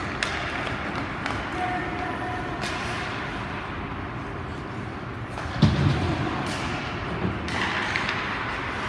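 Ice hockey game sounds in an ice arena: scattered sharp clacks of sticks and puck over a steady hall noise, with one heavy thud about five and a half seconds in.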